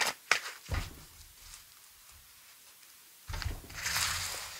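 A deck of oracle cards being handled, then spread in a fan across a cloth table mat: a few light taps early on, and about three seconds in a dull bump of the hands on the table followed by a soft swish of cards sliding over the fabric.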